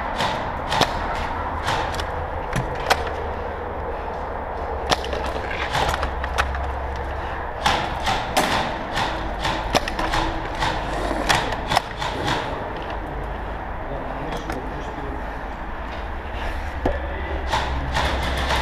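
Scattered sharp clicks and knocks at irregular intervals, typical of airsoft guns firing and BBs striking around during a close-quarters airsoft game, over a steady low rumble.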